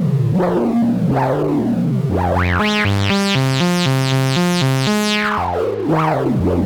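Analogue VCO synth line through the Mörser's WASP-style low-pass filter, with an envelope sweeping the cutoff so each note opens and closes with a resonant 'wow'. Midway the notes come faster, about three a second, each with a quick bright sweep, giving a gritty, chaotic sound.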